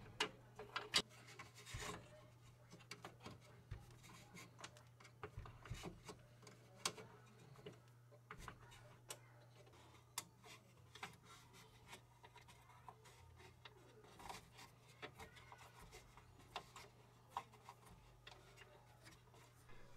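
Faint clicks and scraping of a hex key turning stiff bed-holding transport screws out of a 3D printer's frame, over a low steady hum.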